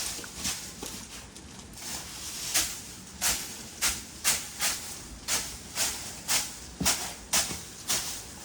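Repeated rustling swishes of horse-stall bedding being tossed and spread, about two a second and more regular from a couple of seconds in.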